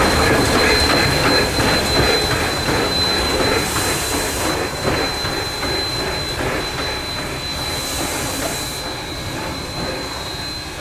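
Train rolling slowly past with a steady high wheel squeal over the rumble and clatter of the cars, gradually fading. Two short hisses come about four and eight seconds in.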